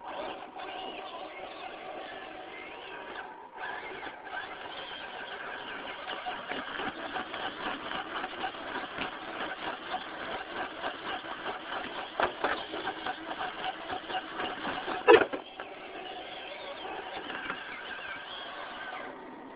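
Losi Night Crawler electric RC rock crawler's motor and drivetrain whining as it crawls over rocks, louder and choppier as it works up the climb. One sharp clack stands out near the end.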